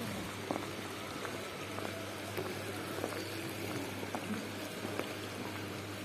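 Small shallow mountain stream running over rocks: a steady rush of water with scattered small gurgles and clicks, over a steady low hum.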